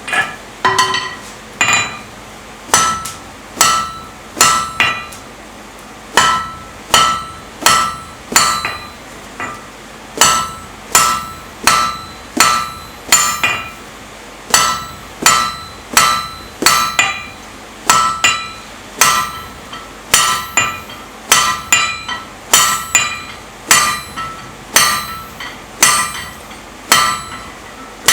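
Blacksmith's hand hammer striking hot steel on an anvil, blow after blow at about one a second, often in quick pairs, each strike ringing briefly.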